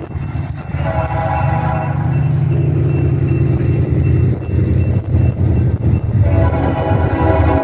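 Union Pacific GE Evolution-series locomotive's horn blowing for a grade crossing: one blast of about a second and a half about a second in, and another starting about six seconds in and still sounding at the end. Under it runs a steady low rumble.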